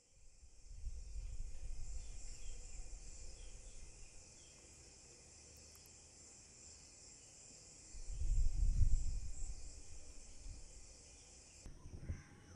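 A steady, high-pitched chorus of insects, overlaid by a low rumble that swells twice and is loudest about eight to nine seconds in.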